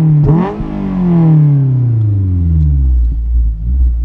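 Honda S2000's F20C inline-four through a test pipe and J's Racing 60RS exhaust, heard from the open cockpit. A quick rise in revs just after the start, then the exhaust note falls steadily for about two and a half seconds as the revs drop off. It settles into a low, steady drone.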